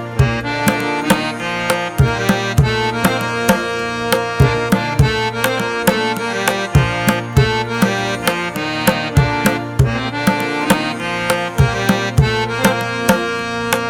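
Background music: hand drums beating a steady rhythm under a melody.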